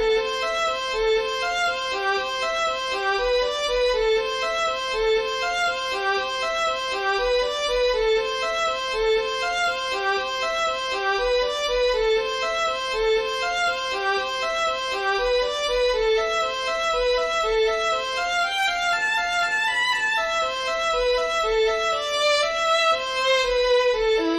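Computer playback of a notated score: one melodic instrument plays an unbroken run of evenly spaced notes in rising and falling arpeggio figures, with no accompaniment.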